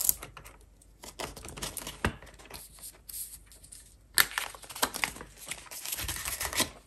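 Clear plastic binder envelope pockets and polymer banknotes being handled: crinkling and rustling with scattered sharp clicks, the handling getting busier about four seconds in.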